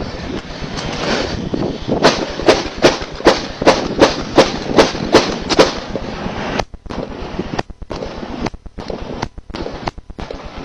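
A rapid string of about ten sharp gunshots, evenly spaced at roughly three a second, over a noisy background.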